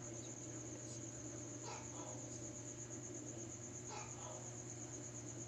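A cricket chirping in one steady, high, unbroken trill.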